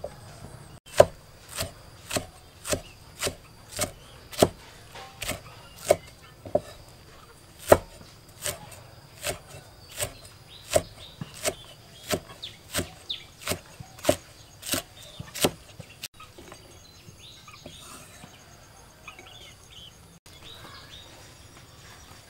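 Cleaver chopping vegetables on a thick wooden chopping block: sharp knocks about two a second, stopping after about fifteen seconds.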